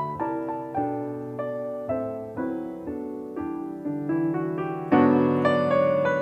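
Jazz piano playing a slow ballad introduction: single melody notes and chords, each struck and left to ring, with a louder, fuller chord about five seconds in.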